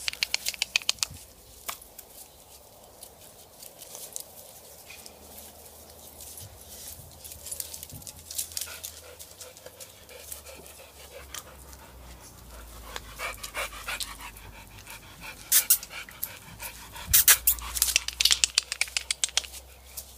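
Rapid, rhythmic panting in several bursts, the loudest near the end, over a low steady hum.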